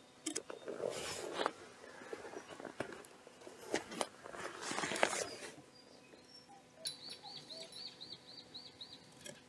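Scuffing and scraping close to the ground, twice: about a second in and again around five seconds. Later a bird calls a quick repeated high chirp, about four notes a second, for a couple of seconds.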